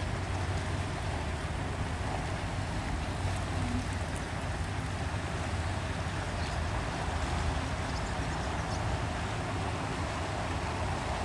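Low, steady engine drone of a ship passing close by, over a wash of wind and water noise.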